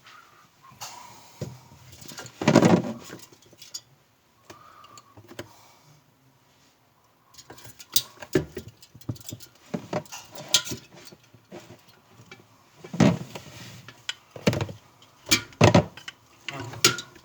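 Scattered clicks, knocks and rattles of objects being handled, with a louder, longer knock about two and a half seconds in and a busy run of clicks and knocks in the second half.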